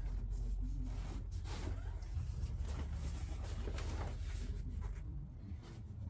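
New upholstery cover rubbing and rustling as it is pulled and worked over a golf cart seat cushion, a run of short scraping strokes that ease off about five seconds in.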